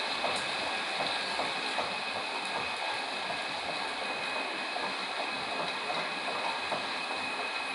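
Metal lathe running steadily while cutting, with a constant machine noise and a faint high whine.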